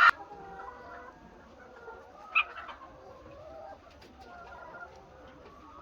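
A flock of laying hens clucking and calling, many overlapping voices, with a loud short burst right at the start and one sharper, louder call about two and a half seconds in.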